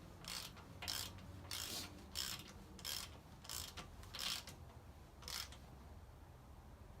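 Hand ratchet wrench being worked on a bolt on the engine: a run of about nine short ratcheting strokes, roughly one every two-thirds of a second, stopping about five and a half seconds in.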